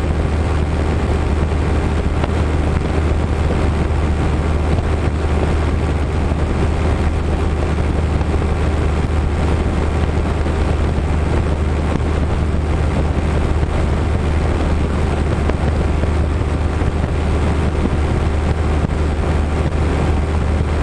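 Light aircraft's engine and propeller droning steadily in cruise flight, a steady low drone. It is heard from a camera on the tail, with wind rushing over the microphone.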